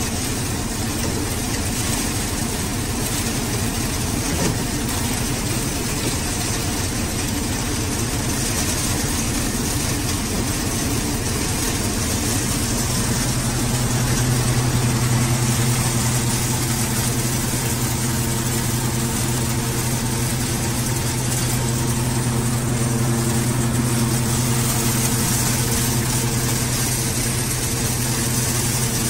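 Swaraj tractor's diesel engine running steadily, driving a multicrop thresher that is threshing soybean, with the drum and shaking sieves adding a constant clatter and rush. The drone grows a little louder and steadier about halfway through.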